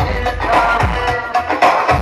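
Loud dance music played through a DJ sound system, with deep bass hits a little under a second apart under busy percussion.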